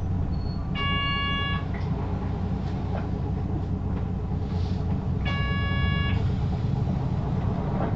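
Hino LKG-KV234N3 city bus engine running with a steady low rumble, heard inside the bus. Two long beeps sound over it, about one second in and again about five seconds in.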